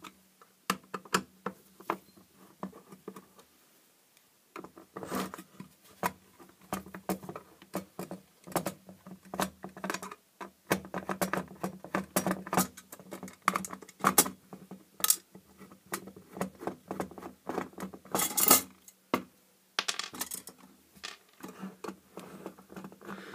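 Screwdriver undoing the small screws of a metal LED floodlight's front cover: irregular clicking and scratching of the tip in the screw heads, with small metallic clinks as screws are set down, and one louder clatter about 18 seconds in.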